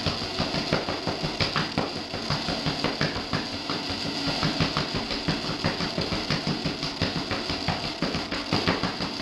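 Throbbing electronic noise music: a fast, even low pulse with a hiss on top, without letup.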